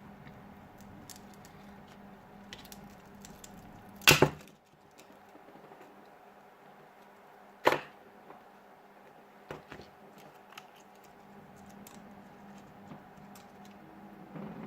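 A few sharp clicks and knocks, like small tools and phone parts being put down or handled on a work surface. The loudest is a quick double knock about four seconds in, and another comes midway, over a faint steady hum.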